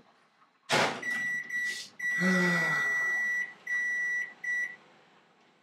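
A sharp knock, then a microwave oven's control panel giving a series of high electronic beeps of uneven length, one held for over a second, as the cooking time is set.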